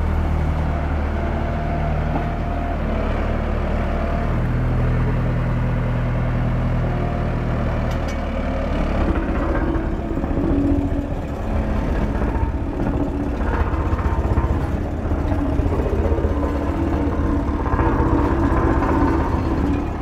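Engine of a 1998 Ingersoll-Rand SD70D single smooth-drum vibratory roller running as it drives across a dirt yard; about eight seconds in the steady hum turns rougher and pulsing.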